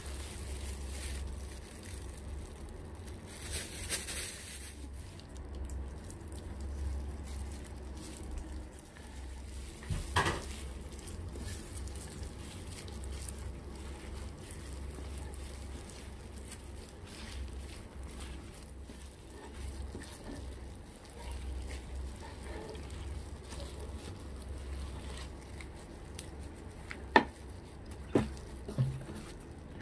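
Kitchen cooking sounds: a utensil clinking and stirring in a pot over a steady low hum, with a sharp knock about ten seconds in and two more near the end.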